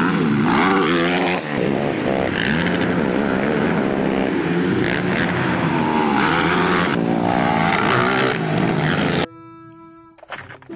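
Several quad bike (ATV) engines revving hard as they race and jump on a dirt track, rising and falling in pitch. The engines cut off abruptly about nine seconds in, leaving quieter background music.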